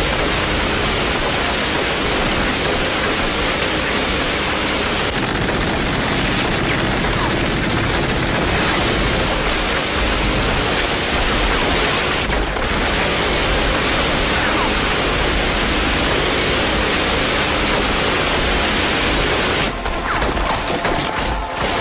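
Continuous dense gunfire with background music.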